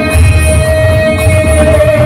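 Loud devotional Hindu music played over a PA system, with one long held note over a steady, heavy low beat.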